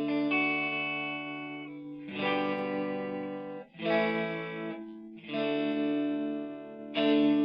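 Electric guitar played through a BOSS Blues Driver BD-2 overdrive pedal: a series of about five chords, each struck and left to ring for one to two seconds, with an overdriven tone.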